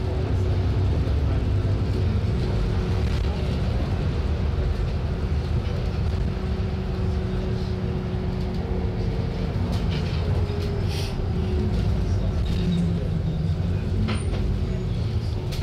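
Alexander Dennis Enviro 400 double-deck bus heard from inside while driving along a street. Its engine and drivetrain run with a steady low drone, a whine that shifts in pitch as it changes speed, and a few short rattles.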